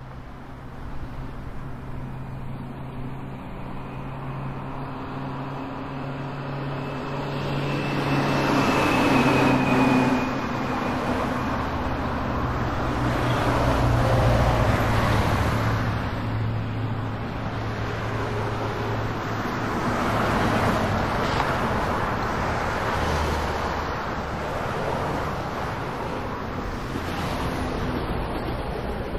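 Small plane's engine droning steadily, with a rush of air noise that swells and eases several times.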